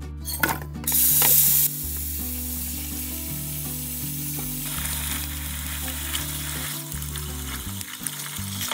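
Tap water running into a stainless steel bowl in a sink while hands rub and rinse ginger roots in the water, with a brief louder hiss about a second in. Soft background music plays underneath.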